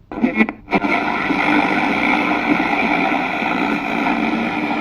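Radio static: a few short crackling bursts in the first second, then a steady hiss.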